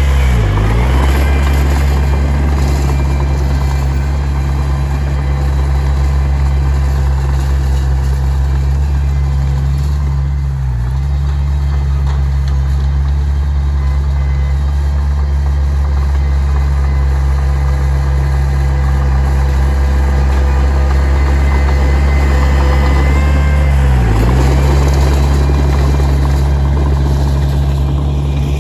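Heavy diesel earthmoving machine's engine running steadily under load, its pitch dipping briefly and recovering three times.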